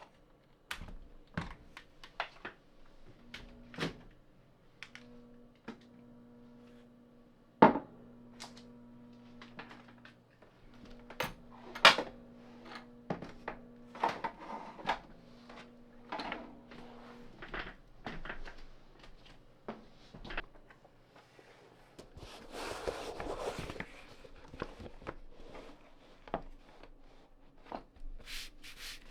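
Irregular clicks, taps and knocks of a mechanical keyboard and its parts being handled, with a few louder knocks and a stretch of rustling about three-quarters of the way through. A faint steady hum sits underneath.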